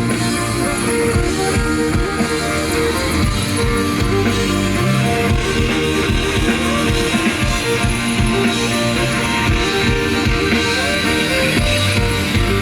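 Instrumental break of a rock song: guitar over a steady drum beat, with no vocals.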